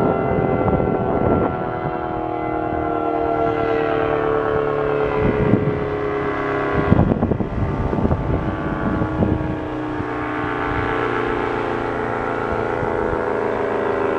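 ASC T-135 rotating outdoor warning siren sounding the attack signal, its wail sliding slowly down in pitch. Gusts of wind buffet the microphone near the start and again through the middle.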